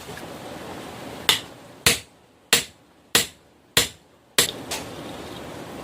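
Hammer blows on steel: six sharp, ringing strikes about two-thirds of a second apart, over a steady hiss.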